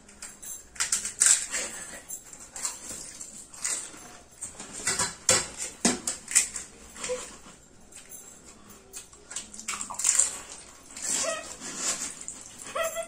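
Fuchka (panipuri) being eaten fast: crisp hollow puri shells cracking and crunching in the mouth, with wet slurping of the water they are filled with, in quick irregular bursts.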